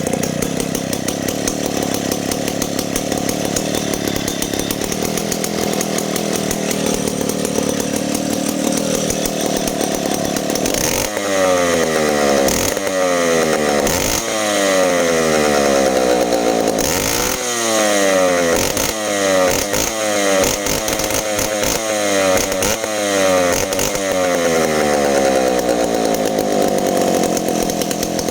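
Two-stroke chainsaw running steadily, then from about a third of the way in revved again and again, the engine speed dropping back after each blip of the throttle: a sound check of a new saw's running condition.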